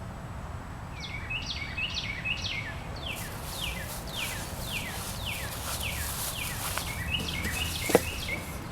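A bird singing outdoors: a long run of short, high, down-slurred notes repeated about two to three times a second over a steady low background, with a single sharp click near the end.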